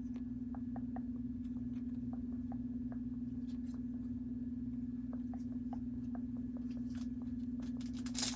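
Trading cards being handled, faint scattered ticks and slides over a steady electrical hum, with a short rustle of a pack wrapper near the end.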